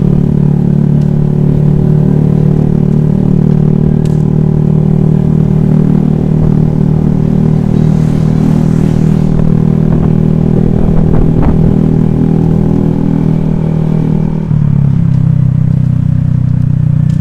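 Honda Vario scooter engine running steadily while riding, its note shifting lower near the end.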